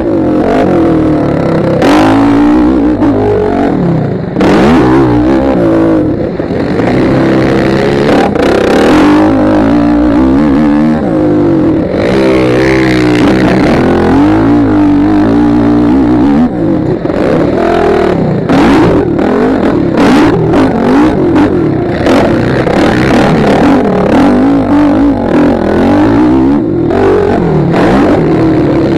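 Motocross bike engine revving hard and dropping off again and again as the rider works through the track, heard close up from a helmet camera at speed. Sharp knocks from the bike over the rough track cut through, most often in the last third.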